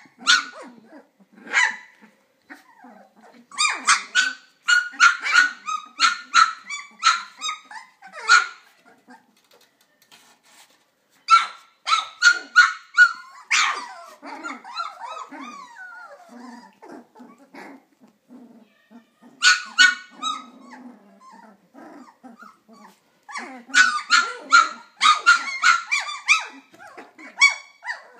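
A litter of flat-coated retriever puppies, about twenty days old, yapping in rapid bursts of short, high-pitched barks. Quieter squeaks and lulls come between the bursts.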